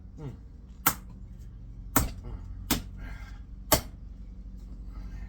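Sharp metal-on-metal knocks, four of them about a second apart, from tools working a part off an old speed-reducer electric motor, over a steady low hum.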